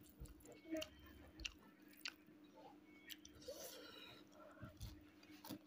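Faint, close chewing of a mouthful of smoked pork and rice, with scattered soft mouth clicks and smacks.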